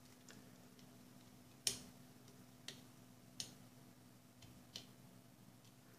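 A handful of faint, sharp clicks and ticks from a small flat screwdriver working the screw of a screw terminal on a circuit board, clamping a wire in place. The loudest comes nearly two seconds in, over a faint steady hum.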